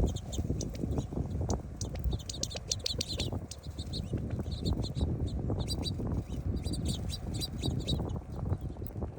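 Many small birds chirping in quick, short, high notes throughout, over a steady low rumble.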